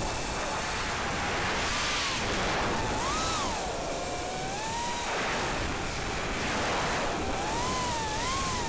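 FPV racing quadcopter's brushless motors whining, the pitch sweeping up and down several times with the throttle, under heavy wind rush over the onboard camera's microphone.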